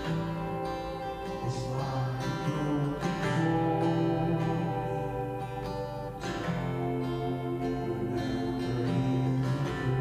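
Instrumental music: sustained chords that change every few seconds.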